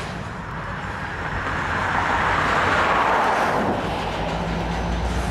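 Covered hopper cars of a freight train rolling slowly past, a steady noise of wheels on rail that swells about halfway through and then eases, over a low steady hum.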